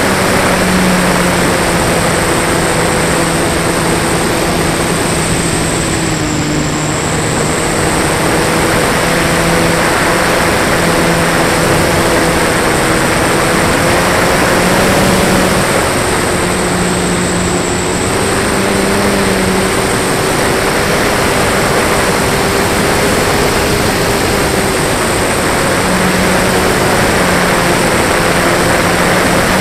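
Flyzone Beaver RC plane's electric motor and propeller running steadily in flight, heard from a camera mounted on the plane, under a heavy rush of wind over the microphone. The motor's hum dips slightly in pitch twice.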